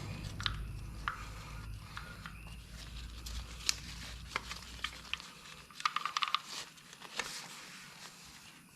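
Scattered light clicks and rustling of small clutch parts being handled, with a quick run of clicks about six seconds in. A low hum underneath stops about five seconds in.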